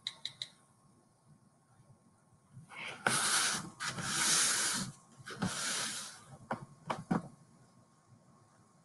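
Tablet in a rotating folio case being handled and turned around on a table: a few light taps, then about three seconds of hissing rubbing and scraping as the case slides and swivels, ending in several sharp clicks.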